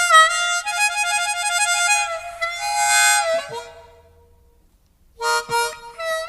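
Harmonica playing long, wavering held notes that step and bend in pitch, breaking off for about a second before more notes near the end.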